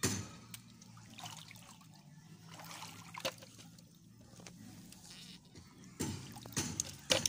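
Shallow water trickling and sloshing around rocks as a hand reaches in to pick up hermit crabs, with a few louder splashes about six seconds in.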